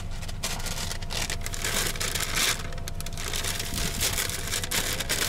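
Paper takeout bags rustling and crinkling as they are handled, in runs about a second and a half in and again near the end, over a car engine idling.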